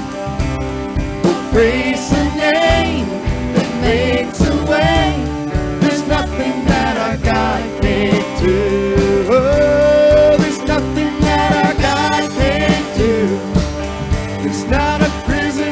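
Worship band music with a steady beat and a melody line that wavers and glides in pitch over sustained chords.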